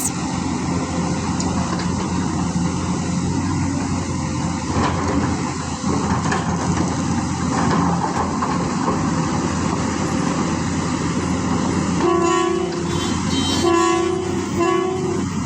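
Heavy construction machinery running steadily, with a horn sounding in two blasts of about a second each near the end.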